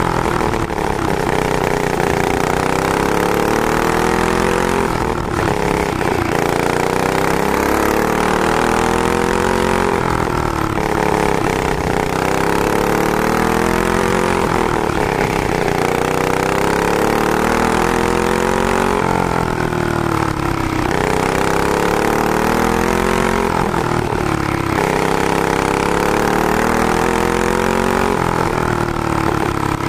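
Single-cylinder four-stroke clone engine of a junior racing kart, heard on board under racing load. The engine pitch climbs along each straight and drops sharply into each corner, about every four to five seconds, lap after lap.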